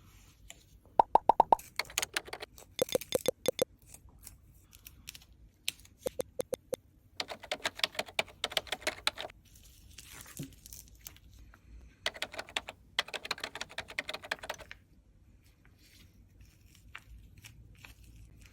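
Added foley sound effects: several bursts of rapid, bouncy little clicks and pops, some with a clear pitch, separated by short pauses.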